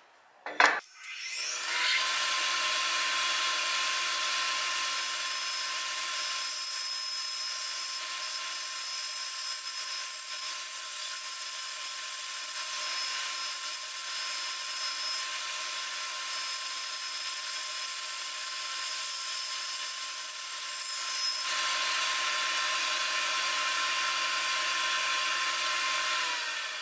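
Bandsaw switched on with a click about half a second in, coming up to speed and running steadily with a constant whine while cutting wood, then switched off and winding down near the end.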